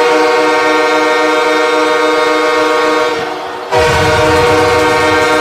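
HC Torpedo Nizhny Novgorod's arena goal horn blasting: a loud, steady chord of several tones that fades somewhat about three seconds in, then blasts again at full strength with a low rumble underneath.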